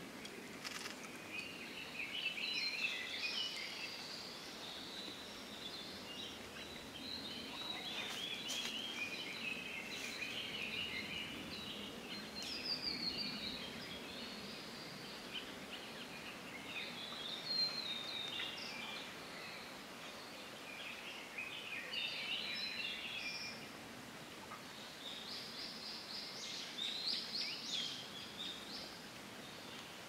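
Small birds twittering and chirping continuously, many quick high notes overlapping. A few sharp taps come through about a second in and again around eight to ten seconds in.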